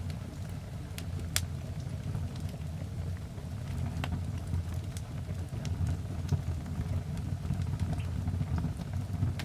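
Wood fire burning in a fireplace: sharp, irregular crackles and pops over a steady low rumble.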